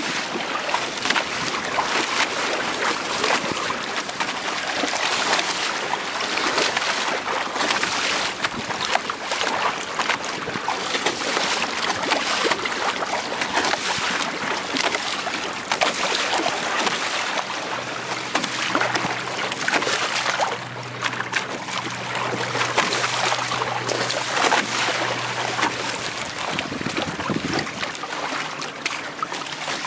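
Water splashing and rushing along the hulls of a Hobie Tandem Adventure trimaran sailing kayak under way through choppy water, with wind on the microphone. A faint low hum comes in for several seconds past the middle.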